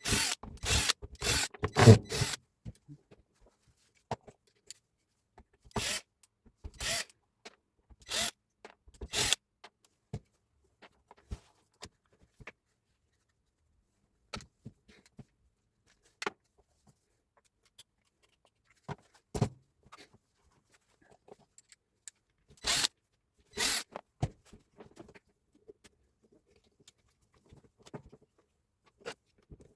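Scattered sharp knocks and clicks of tools and parts being handled during work on a Hilti TE 905 breaker. A quick run of knocks comes in the first couple of seconds, then single and paired knocks with quiet stretches between.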